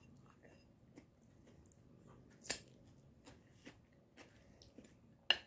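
Metal fork tapping and scraping on a plate as food is picked up: a few light clicks, the loudest about two and a half seconds in and another sharp one near the end.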